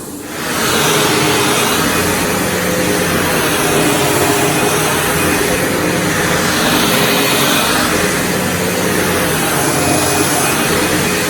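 SEBO Automatic X4 bagged upright vacuum cleaner running over carpet, a steady motor and brush-roll drone that swells and fades slightly as it is worked back and forth. It gets louder about half a second in.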